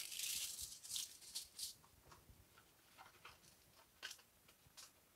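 Aluminum foil crinkling as it is pressed and smoothed onto a metal baking sheet, dying away about two seconds in; a few faint taps follow.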